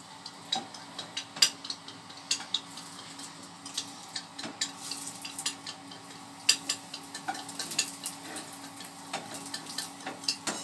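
An egg frying and sizzling in a pan, with a spatula scraping and tapping against the pan in irregular clicks. A faint low hum runs underneath.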